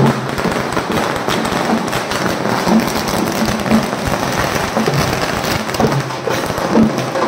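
A string of firecrackers going off in a rapid, continuous crackle of small bangs.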